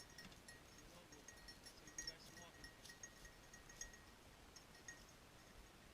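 Faint, intermittent tinkling of a small bell, jingling in short irregular bursts.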